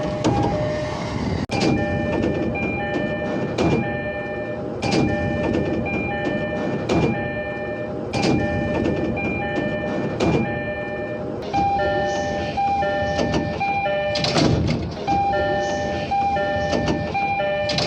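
Door chime of an E231 series 1000 train (set K15) sounding over and over, a short two-note chime repeating at even spacing; this set's chime sounds unusual. Sharp thumps and station noise run under it.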